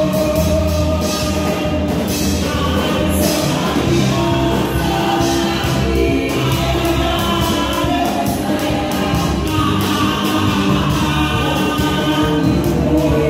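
Gospel hymn sung live by two singers on microphones through a PA, over instrumental accompaniment with a steady beat.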